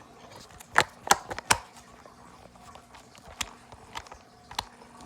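A few sharp clicks and knocks as parts of a baby swing are handled and fitted together: three close together about a second in, then two more later on.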